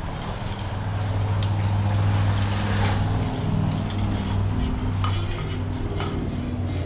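An engine running steadily, with a few light metallic clinks.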